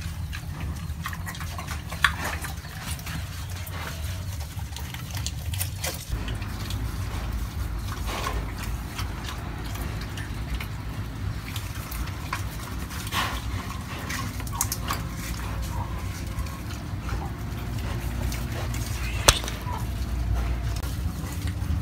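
A pig feeding on green vegetable stalks: irregular munching, crunching and snuffling, with animal grunting sounds, over a steady low rumble. Two sharp clicks stand out, about two seconds in and near the end.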